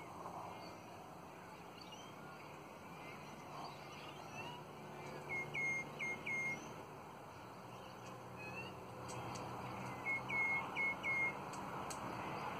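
Twenty-eight parrot (Australian ringneck) calling: a group of three short, clear whistled notes about five seconds in, then four more about ten seconds in, each note ending with an upward flick. Soft chirps in between.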